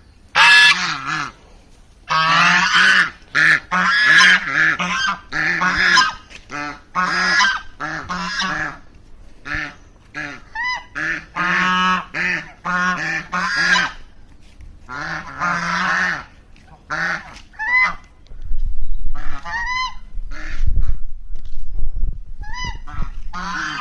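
Domestic geese honking over and over in harsh runs of calls. In the last few seconds the honks thin to a few short calls over a low rumble.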